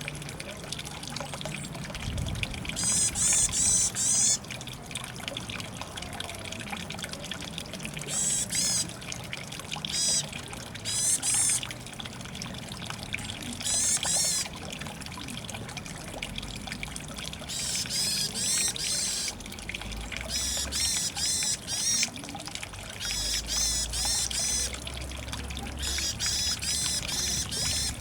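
Varied tit calling in repeated bursts of fast, high, warbling notes, about nine phrases each a second or two long, with short pauses between.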